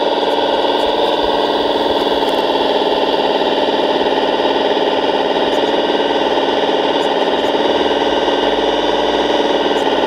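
Scale radio-controlled Bobcat T770 compact track loader model running as it pushes its bucket into a dirt pile: a steady, even mechanical drone.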